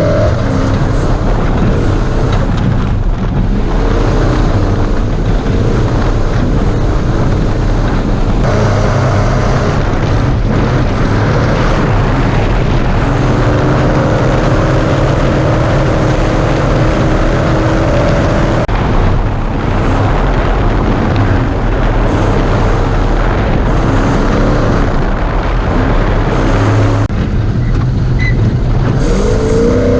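Class 1450 Ford Ranger desert race truck at speed: the engine runs hard, its pitch rising and falling with the throttle, over a constant heavy rumble of tyres and chassis on rough ground.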